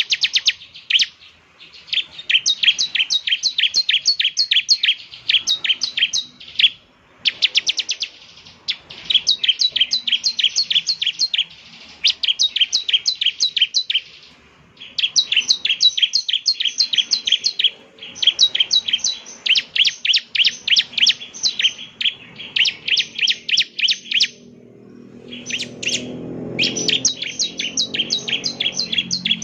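Bar-winged prinia (ciblek) singing: fast runs of sharp, high repeated chirps, each run lasting a few seconds, with short pauses between them. Near the end a low rumbling noise rises underneath the song.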